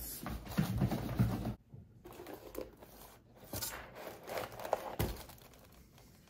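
Packaging crinkling and rustling as a helm is unwrapped from its box, in irregular handfuls with short pauses and a sharper click about five seconds in.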